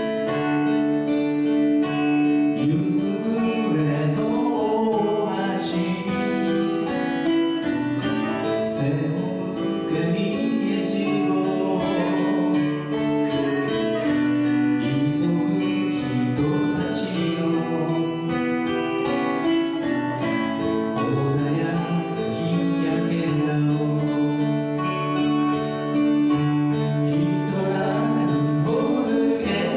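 Live acoustic folk song: acoustic guitars playing with a man singing, and a few brief high shimmering strokes along the way.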